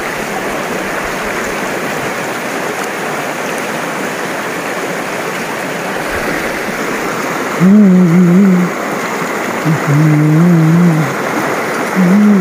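Shallow mountain river rushing steadily over stones. About eight seconds in, three loud, wavering, pitched calls of about a second each rise above the water.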